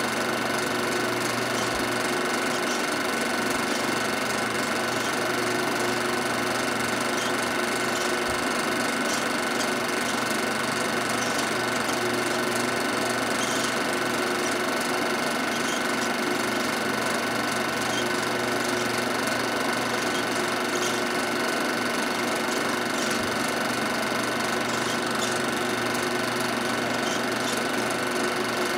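Film projector running: a steady whirring clatter of the mechanism, with a constant hum underneath.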